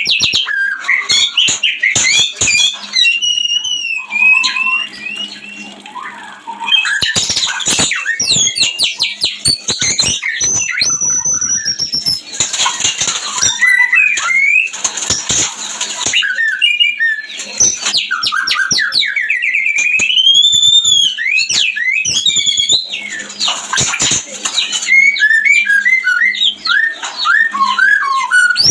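White-rumped shama (murai batu) singing its mating song: a long, varied run of loud clear whistles that glide up and down, rapid trills and harsh chattering notes.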